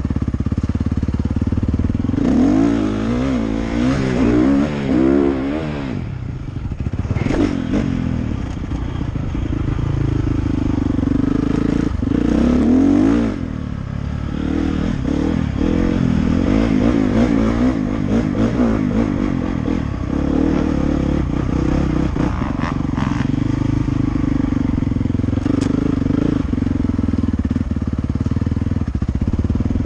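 Dirt bike engine revving up and dropping back again and again as the bike is ridden along a dirt trail.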